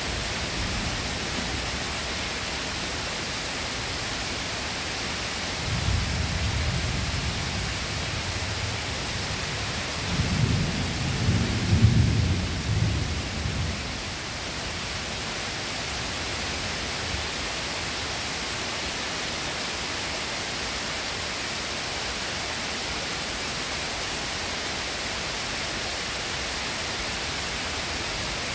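Steady rain with thunder rumbling twice: a shorter low roll about six seconds in, then a louder, longer one from about ten to fourteen seconds.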